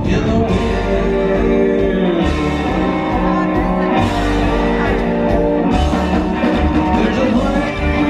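Live rockabilly band playing: a man singing held notes over electric hollow-body guitar, upright bass and drums.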